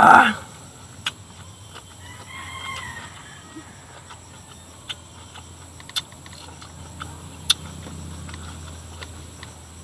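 A rooster crows faintly about two seconds in, lasting about a second. Around it are eating sounds: a short loud mouth noise at the very start and scattered sharp clicks.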